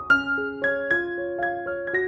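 Intro music: a gentle piano melody of single struck notes, a new note about four times a second, the loudest right at the start.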